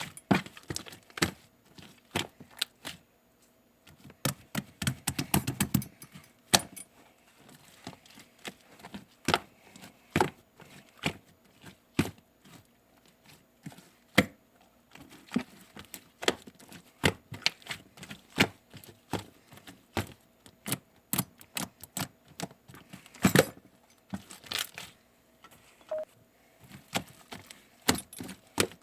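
Irregular series of sharp clicks and taps, with a denser burst of crackling clicks about five seconds in.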